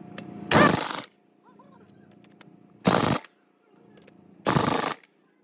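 Three short bursts of loud, rapid mechanical rattling from a power tool working on a truck wheel hub, each about half a second long and roughly two seconds apart, with a faint steady hum between them.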